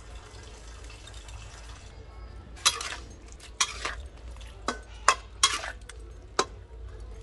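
Metal spatula scraping and clacking against a wok while sliced luffa gourd is stir-fried. A steady frying hiss for the first two seconds gives way to about six sharp scrapes over the next four seconds.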